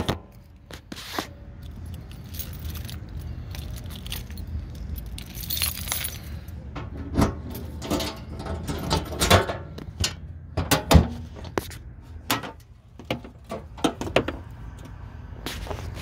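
Irregular clicks, knocks and light metallic jangling of objects being handled, the loudest knock about eleven seconds in, over a low steady rumble.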